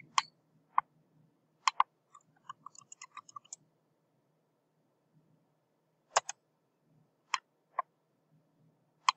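Computer mouse clicks, then a quick run of keyboard typing between about two and three and a half seconds in, then a few more single mouse clicks.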